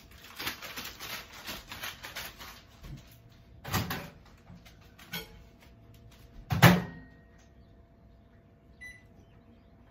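A snack packet shaken hard, a quick run of rustling rattles, then a microwave oven door clunking open about four seconds in and banging shut just before seven seconds, the loudest sound. Near the end comes a single short keypad beep.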